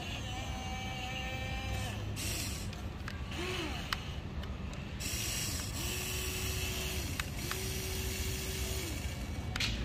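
Huina RC excavator's electric motors whining as they drive the boom, stick and bucket. There are several runs of a second or two each, and each pitch rises, holds steady and then falls, with a few small clicks between runs.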